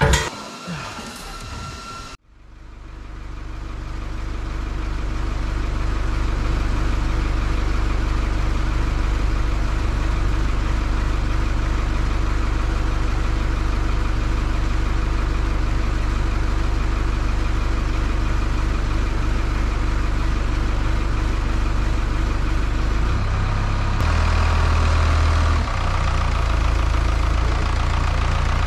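A brief clatter of steel, then a telehandler's engine running steadily at idle, its note shifting near the end.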